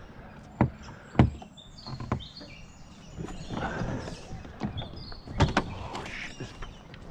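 Hollow knocks and scraping of a plastic kayak hull being shifted across a concrete pontoon, with several sharp knocks, the loudest about a second in. Birds chirp in the background.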